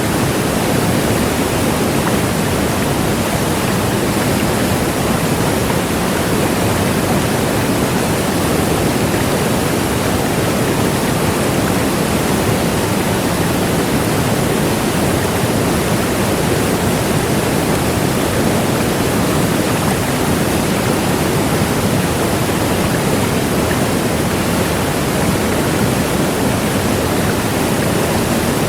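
Large waterfall: a steady, loud rush of falling water, even and unchanging throughout.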